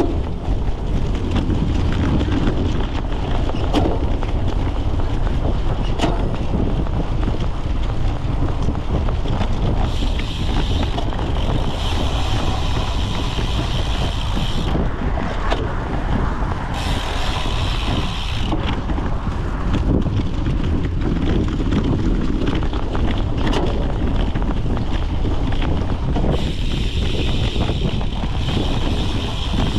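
Wind buffeting the microphone of a seat-mounted camera on a cyclocross bike being raced, with the bike rattling and clicking as its tyres run over rough ground. A higher hiss comes and goes several times.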